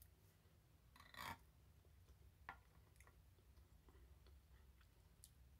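Quiet eating sounds, mostly near silence: a short soft breathy sound about a second in, then a few faint light clicks of a metal spoon against a small glass dessert dish as more soft pudding with vanilla wafers is scooped.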